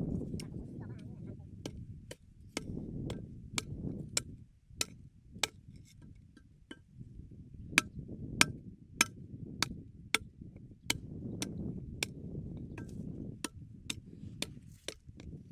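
Steady chopping with a blade, sharp strikes about one and a half a second, with a brief pause about halfway through; a low rumbling noise runs underneath.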